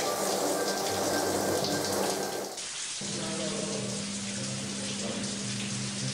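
Shower running, a steady hiss of spraying water, with steady music tones over it. About two and a half seconds in the spray sound thins out and a low steady drone takes over.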